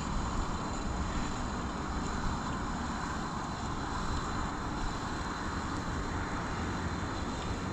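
Steady wind buffeting the microphone, an uneven low rumble over a constant hiss.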